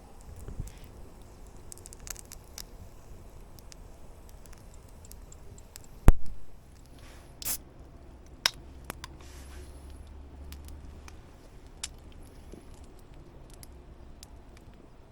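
Scattered light clicks and rattles of things being handled, with one sharp knock about six seconds in and a short hiss a moment after.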